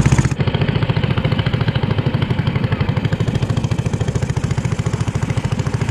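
Long-tail boat engine running steadily under way, heard from aboard. It has a fast, even firing beat and a strong low drone, and eases off slightly just after the start.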